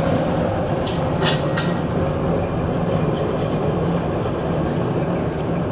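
Heavy metal machinery running with a steady rattling rumble, with a few brief high metallic squeals about a second in.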